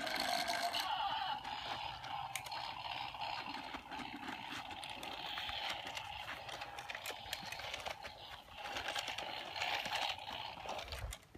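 John Deere toy tractors being pushed over dirt by hand, with a steady electronic engine sound from a toy's small speaker and many short plastic clicks and rattles from the wheels. The sound drops off suddenly near the end.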